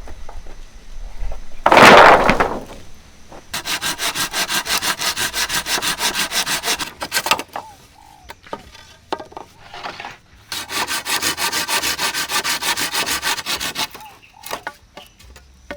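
Hand saw cutting through wood in two runs of quick, even strokes, about five a second. A loud, short crack or thud about two seconds in is the loudest sound, and there are a few small knocks between the runs.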